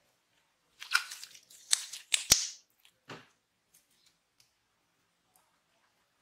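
Clear glitter slime being squeezed and stretched by hand, giving a quick run of sharp wet pops and clicks about a second in, one more pop a moment later, then only a few faint ticks.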